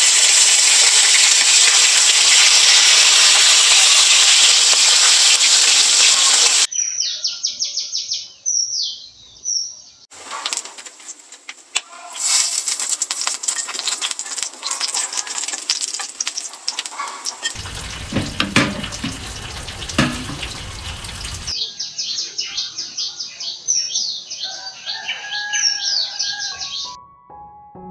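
A loud, steady rushing noise that cuts off abruptly, followed by birds chirping rapidly. Then a stretch of rustling with clicks and a few low thumps, and more rapid bird chirping.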